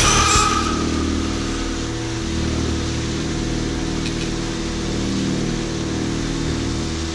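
Pressure washer's motor and pump running steadily, with the hiss of its water jet spraying onto a soaked carpet.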